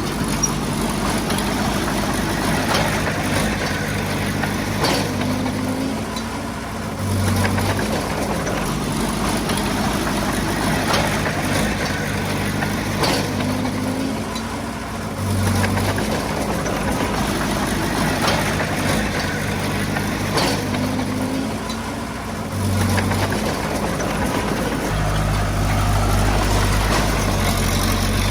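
Diesel engine of a Komatsu D20 bulldozer working, its note dipping and then picking up again about every seven to eight seconds as the machine cycles through its work.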